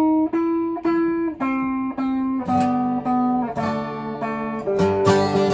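Guitar music: single plucked notes, about two a second. Lower notes join about halfway through, and the music gets louder and fuller near the end.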